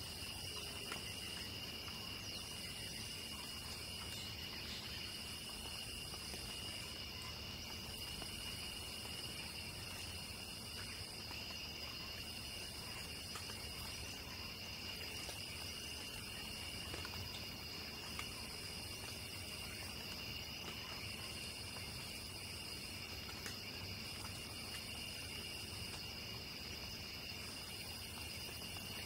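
Night crickets trilling steadily in chorus at two high pitches. A still higher insect buzz comes in pulses about a second and a half long, roughly every two seconds.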